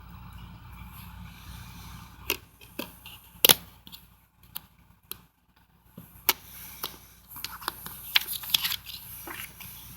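Plastic DVD case being handled: a series of sharp clicks and snaps, the loudest about three and a half seconds in, then quick clicking and scraping of plastic near the end. A steady low hum runs under the first two seconds and then stops.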